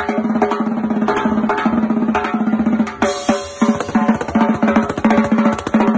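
Street drum line playing a fast, dense rhythm on snare drums, a rack of tenor drums struck with sticks, and hand-played congas. A bright cymbal wash joins about halfway through.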